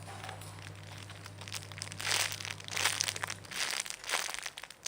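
Plastic wrapping crinkling in several short bursts as a squishy toy is handled, starting about two seconds in.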